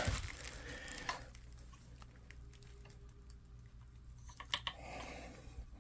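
Faint handling noises: a few light clicks and taps, with a soft rustle near the end.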